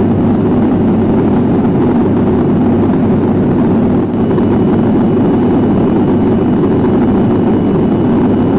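Steady, loud drone of a turboprop airliner's engines and propellers, heard from inside the passenger cabin.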